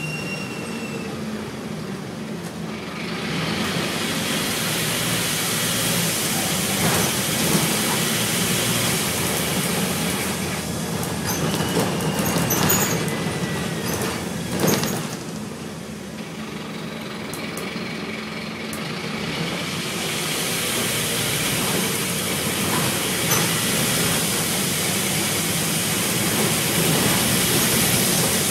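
A Scania N230UB single-decker bus under way: diesel engine running with a steady hum, plus road and wind noise that swells as it gathers speed and dips briefly in the middle. A cluster of sharp clicks and rattles comes in the middle.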